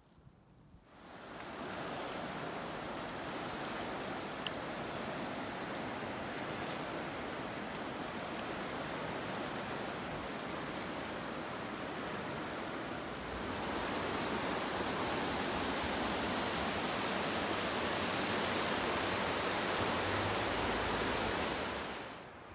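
River water rushing over rapids, a steady rushing that comes in about a second in and gets louder a little past halfway.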